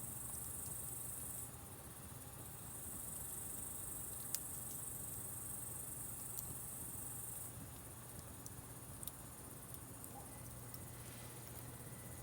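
A steady high-pitched chorus of chirring insects, crickets by their sound, that swells and fades in strength a few times. Occasional sharp pops of a wood fire crackling, the loudest about four seconds in.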